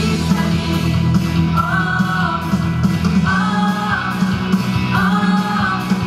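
Mixed vocal ensemble of men and women singing through handheld microphones over amplified instrumental accompaniment, with three long held notes in the melody.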